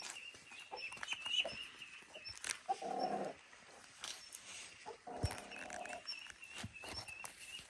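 Ducklings peeping in distress, a thin high call that keeps going, over rustling and scraping through vegetation. Two short, lower animal calls come about three and five seconds in.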